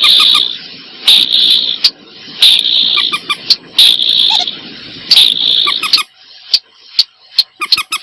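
Bird calls from a lure recording of mandar batu (common moorhen) and sintar sawah: a harsh call repeated about every second and a half. About six seconds in it gives way to a series of short, sharp ticking notes, roughly two a second.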